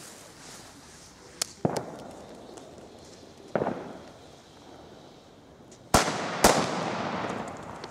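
Keller Super Böller A firecracker: its fuse sputters, then it goes off about six seconds in with a sharp bang, a second sharp report half a second later and a rolling echo. Fainter bangs sound about one and a half and three and a half seconds in.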